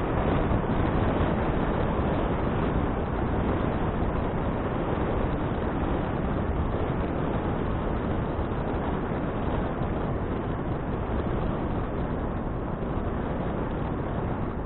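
Steady rushing wind noise on an action camera's microphone while riding a bicycle, with a low rumble underneath.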